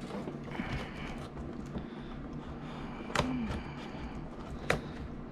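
Helmet packaging being handled and opened by hand: quiet rustling with two sharp clicks, about three seconds in and again a second and a half later.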